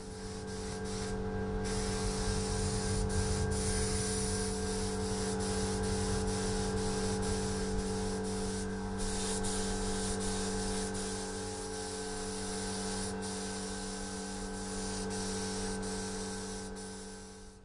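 Spray gun hissing as it sprays green base-coat paint, with a steady motor hum from the air supply underneath. The hiss breaks off briefly a few times as the trigger is let go.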